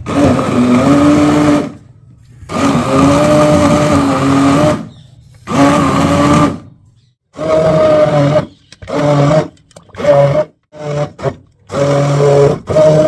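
Orpat electric hand blender running in repeated on-off bursts, its motor humming under load as it purees cooked mustard greens in a steel pot. The first bursts last one to two seconds; from about halfway on they come shorter and quicker.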